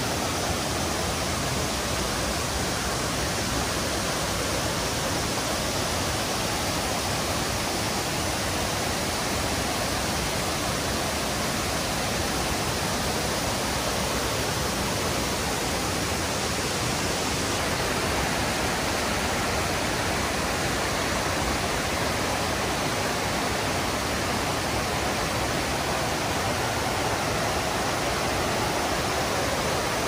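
Fukiware Falls, a broad curving waterfall, with its river running fast over the bedrock: a loud, steady rush of water.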